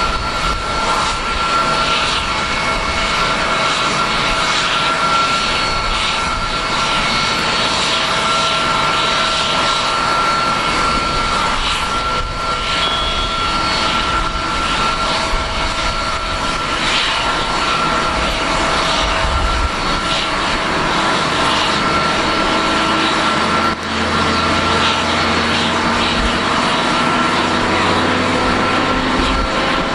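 Boeing 777-281 jet airliner on the apron during pushback: a steady high jet whine over a loud rushing noise. A lower hum joins about two-thirds of the way through.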